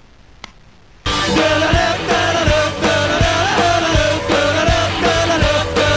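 Faint hiss, then about a second in a rock song with a steady drum beat starts abruptly and plays on.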